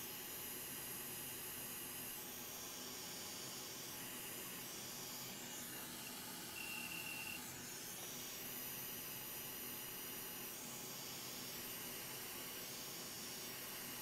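Hot air rework station blowing a steady, faint hiss of hot air onto a laptop motherboard, melting the solder to free a ribbon connector. A brief thin high tone sounds about seven seconds in.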